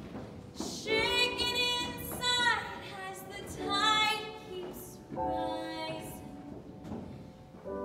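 A woman singing a solo musical-theatre song line in three phrases with short breaks between them. The middle phrase ends in a falling slide.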